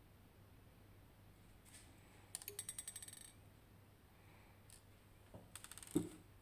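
Small metal lock parts clicking and rattling against a hard surface in two quick runs of ticks, the first about two seconds in and the second near the end, which finishes with a louder knock.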